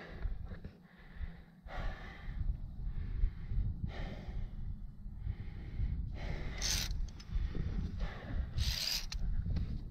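A climber breathing hard in repeated heavy breaths, the strongest near the middle and close to the end, over a steady low rumble.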